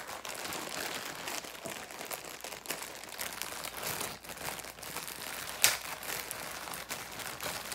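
Packaging crinkling and rustling as a folded shirt is unwrapped by hand, with scattered small clicks and one sharper snap about two-thirds of the way through.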